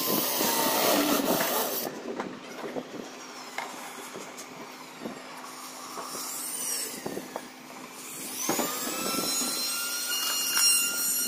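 Cordless drill running into a laminated board, loud for the first two seconds. It runs again from about eight and a half seconds in, its motor whine rising and then holding steady.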